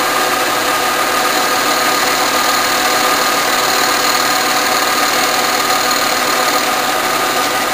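Bridgeport milling machine running, its end mill cutting the top face of a cast model steam-engine cylinder, a steady machine noise with several steady tones throughout.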